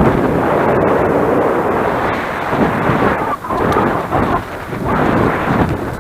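Wind buffeting the microphone of a camera on a moving bicycle, a loud rumbling rush that rises and falls in gusts.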